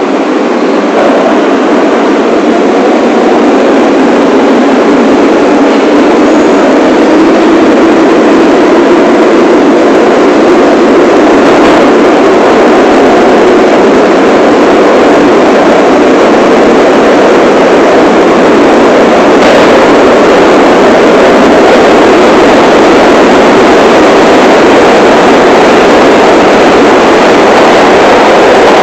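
New York City subway train running through a tunnel: a loud, steady rumble of wheels on rail, with an electric motor whine that drifts in pitch.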